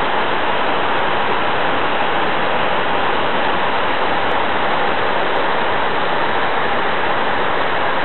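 Waterfall heard close up: a loud, steady rush of water pouring down a rock face, unchanging throughout.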